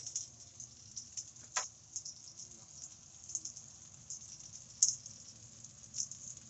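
Chicken thigh and carrots frying in a thick iron frying pan: fat crackling and spitting in irregular pops, with a few louder snaps, over a steady low hum.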